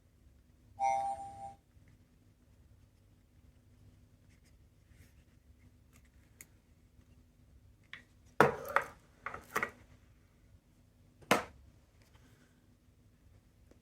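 A small sound-making capsule toy gives a short electronic tone about a second in. Later come a handful of sharp clicks and knocks, with one more a couple of seconds after.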